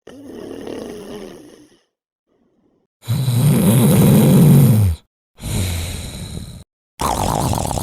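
A string of separate snoring sound effects, each starting and stopping abruptly with silence between: a breathy snore, then a loud deep snore about three seconds in, then two shorter snores.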